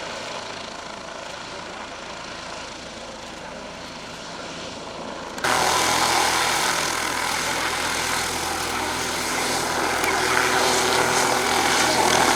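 Helicopter running overhead, a steady drone of engine and rotor. About five seconds in it abruptly becomes much louder and stays loud.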